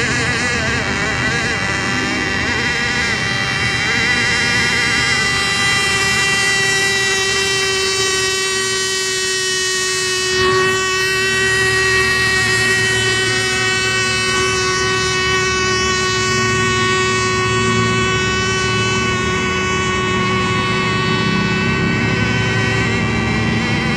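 Radio-controlled racing boat engine running at high, steady revs, a buzzing engine note that holds nearly the same pitch throughout.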